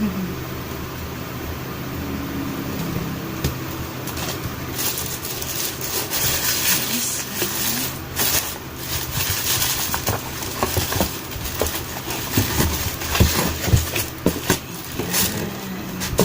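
Packaging rustling and crinkling, with scattered light clicks and knocks, as a new pair of sneakers is unpacked and handled. The rustling starts about four seconds in and grows busier, over a steady low background hum.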